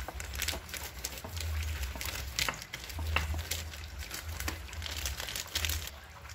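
Clear plastic sheet crinkling and rustling as a wooden rolling pin rolls cookie dough under it and hands press and then peel the plastic off, with scattered light clicks over a low steady hum.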